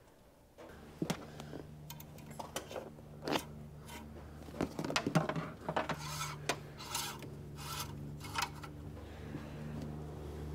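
Handling sounds in a diesel pickup's engine bay after an oil fill: scattered clicks and knocks of plastic parts, then a few short rubbing swishes in the middle, over a low steady hum.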